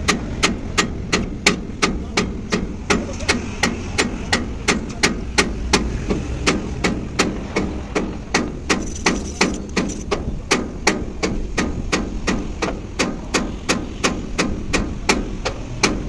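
Hammering: sharp strikes, evenly spaced at about three a second, over a low steady rumble.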